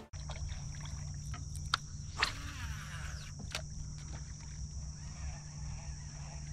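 Steady high-pitched chorus of insects from the marsh grass, with a low steady hum underneath. A few sharp clicks or knocks stand out, the two loudest about two seconds in.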